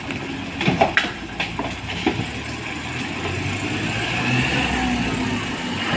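A motor vehicle's engine running and growing gradually louder, with a few short knocks about a second in.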